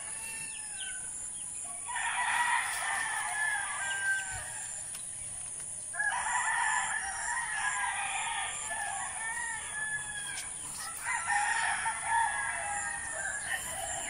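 Roosters crowing, three long crows in a row about four seconds apart.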